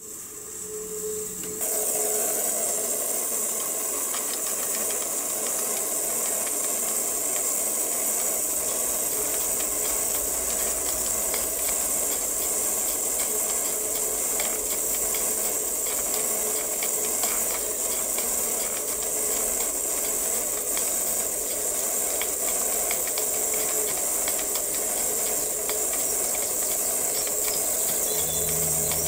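Steam hissing steadily from the safety valve of a small gas-fired copper model boiler, which has come up to pressure and is releasing. The hiss starts suddenly about two seconds in.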